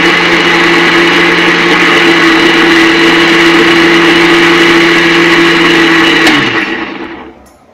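Electric mixer grinder's motor running at full speed with a steady whine, grinding coriander and a little water into a wet chutney paste in a small stainless-steel jar. About six seconds in it is switched off, and its whine drops in pitch and fades as the motor spins down.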